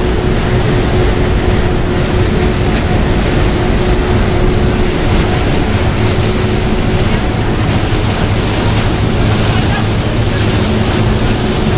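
Wind buffeting the microphone on the open deck of the Staten Island ferry, over the rush of its churning wake and the steady hum of its engines.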